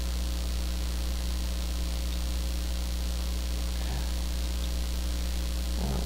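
Steady low electrical mains hum with a faint buzz, unchanging throughout.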